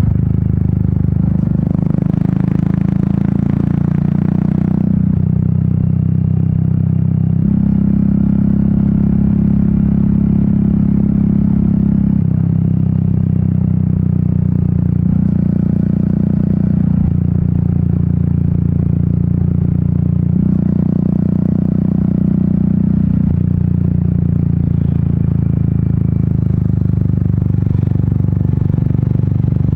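Royal Enfield Meteor 350's single-cylinder engine and exhaust running under way, its note holding steady and then stepping to a new pitch several times. A hiss of wind joins in over the first few seconds.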